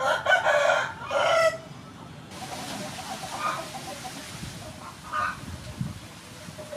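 A rooster crows loudly in the first second and a half, in two parts. Fainter chicken calls follow a couple of times.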